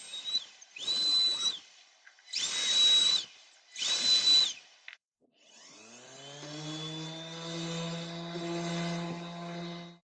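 Electric router cutting the edge of a wooden tabletop in three short bursts, each under a second, with a high whine. Then a power tool motor winds up and runs steadily for about four seconds.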